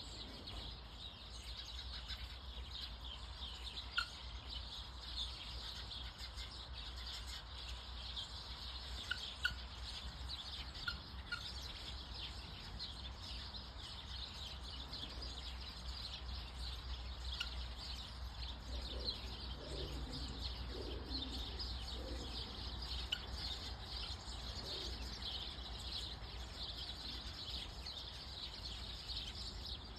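Many small birds chirping continuously, with a few louder single chirps standing out. Some low, soft calls come in about two-thirds of the way through, over a steady low rumble.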